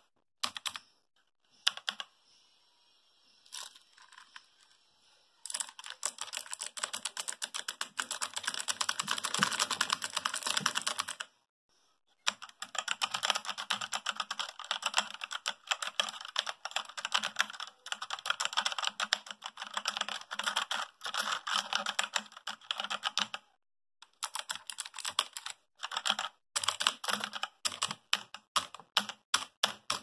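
Keys of a Redgear Invador MK881 mechanical keyboard being typed on, each keystroke a sharp click. A few separate strokes and a quiet pause are followed by two long runs of fast continuous typing with a short break between them, then slower separate keystrokes near the end.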